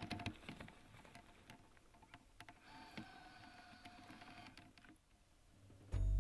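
Faint ticks and rustles of conifer branches brushing against the camera as it pushes through brush, with a faint steady tone for a couple of seconds in the middle. Background music comes in near the end.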